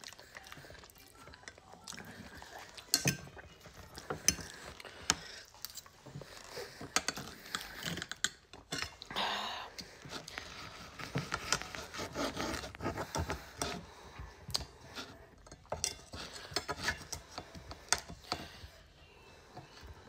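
Knife and fork scraping and clicking against a plate as a T-bone steak is cut, with scattered sharp clinks, a few of them loud.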